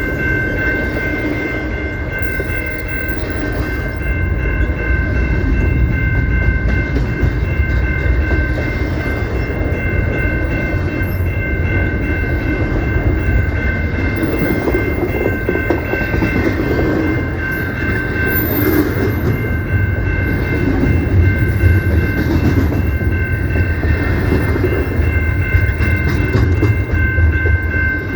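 CPKC freight train rolling past: a steady low rumble and clatter of the cars on the rails, with a steady high-pitched tone held throughout.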